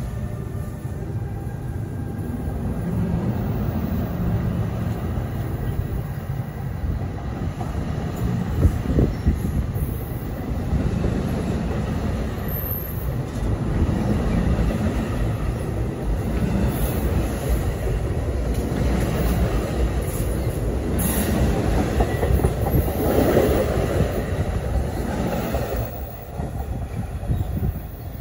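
NJ Transit bilevel passenger coaches rolling past close by, a steady rumble of wheels on rail with a few sharp knocks from the wheels. The sound drops near the end as the last car pulls away.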